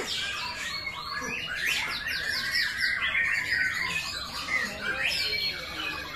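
White-rumped shama (murai batu) singing without a break, a fast, varied run of whistles and chirps, with a quick series of repeated notes about two seconds in.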